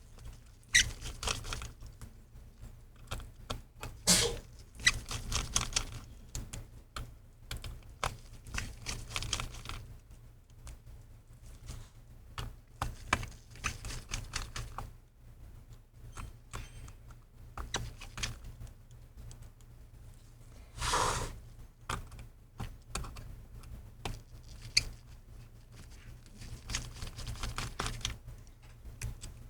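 Small precision screwdriver clicking and scraping on tiny laptop screws, with scattered light ticks and taps of metal parts, and a louder knock about four seconds in and another near twenty-one seconds.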